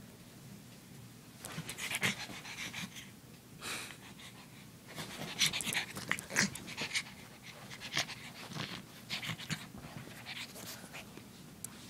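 Black pug puppy panting in quick, noisy breaths, in irregular runs that start about a second and a half in.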